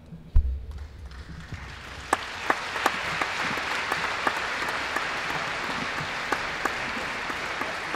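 Audience applauding, building up over the first two seconds and then holding steady with many individual claps. A single low thump just before the applause starts is the loudest sound.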